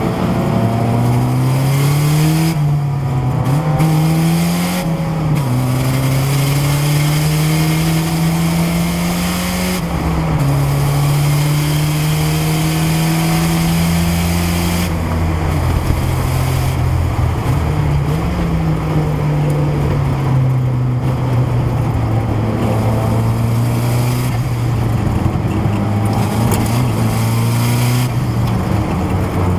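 Turbocharged Saab engine in a Nissan 300ZX race car running hard, its pitch climbing and then dropping at each gear change several times, settling to a steadier, lower note in the second half.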